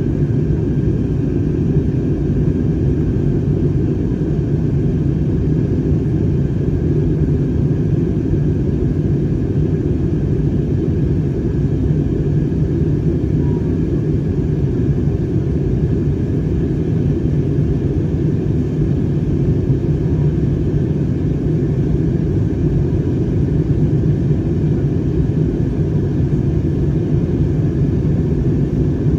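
Steady cabin noise inside a jet airliner in flight: the even, low roar of the engines and airflow, with a faint steady tone riding above it.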